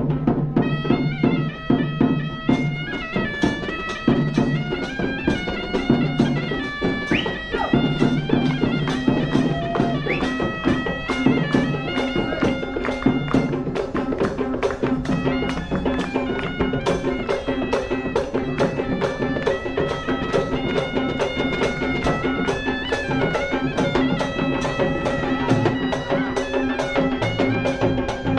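Live Sri Lankan traditional music: drums beating a fast, even rhythm under a shrill reed pipe playing a stepping melody over a steady drone.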